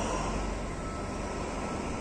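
SNCF BB 67400-class diesel locomotive running under power as it pulls slowly away with a train; a steady engine drone.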